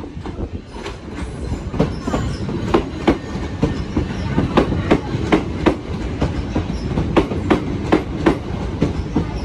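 Southern Electrostar electric multiple unit passing along the platform, its wheels clacking rhythmically over the track joints about three times a second over a steady rumble.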